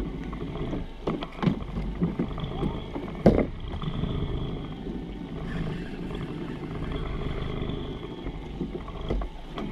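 Suzuki outboard motor running at trolling speed, with water and wind noise around the boat. A few sharp knocks break in about a second in, and a louder one a little after three seconds.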